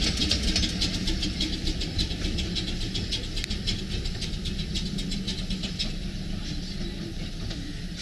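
A 15-inch-gauge steam locomotive moving along the track beside its coaches: a quick run of clicking beats over a low rumble, growing fainter as it draws away.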